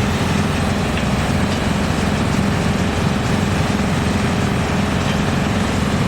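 GX2113 drum wood chipper, driven by its 220 kW electric motor, running with a loud, steady drone.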